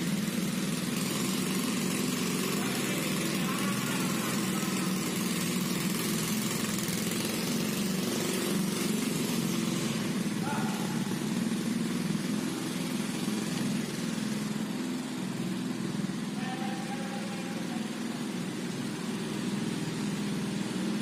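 Single-cylinder four-stroke Honda Activa 110cc scooter engine in a homemade go-kart, running steadily at an even speed.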